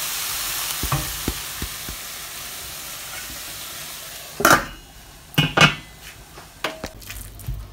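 Chicken and potato filling sizzling faintly in a stainless steel pan as a wooden spoon stirs it, the sizzle slowly fading because the flame has just been turned off. About four and a half seconds in, the pan's steel lid knocks down onto the pan, followed by a few lighter knocks as the wooden spoon is laid on top of the lid.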